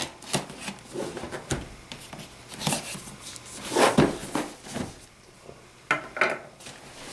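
Cardboard box and its packaging being cut open with a knife and handled: irregular scrapes, rasps and small knocks, the loudest about four seconds in.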